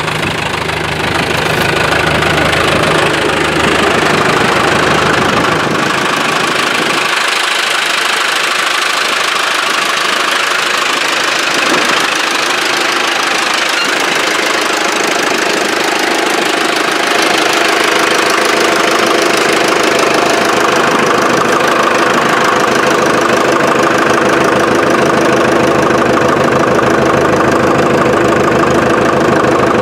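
1955 International TD6 crawler's four-cylinder engine running steadily at idle, its pitch holding even with no revving.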